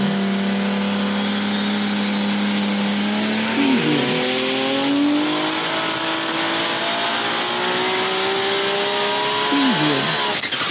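Racing car engine running at speed, its pitch holding steady and then climbing gradually, with brief sharp dips in pitch about four seconds in and again near the end.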